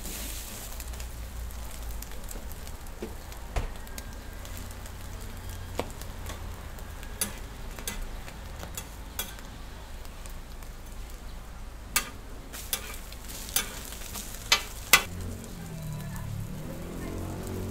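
Egg toast and bread slices sizzling on a flat griddle, a steady frying hiss with a few sharp clicks from the cooking scattered through, the loudest near the end.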